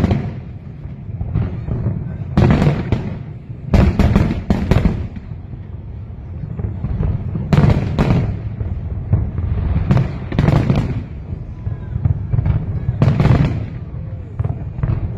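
Aerial firework shells bursting in a display, a sharp bang with a deep booming tail every two or three seconds, with a quick cluster of several cracks about four seconds in.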